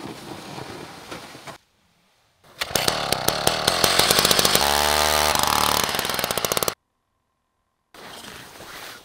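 Gas-powered ice auger running hard as it drills through lake ice, a rapid rattle of engine firing for about four seconds that stops suddenly. It is preceded by a quieter shuffling noise and followed by quieter rustling.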